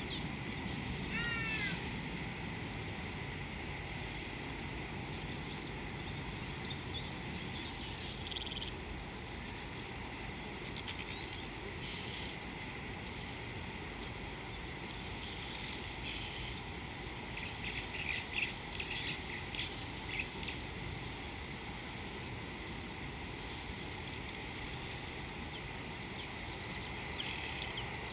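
An insect, cricket-like, repeating short high-pitched chirps about once or twice a second, over steady background noise. Brief bird calls come in, a quick falling series about a second in and a few chirps around two-thirds of the way through.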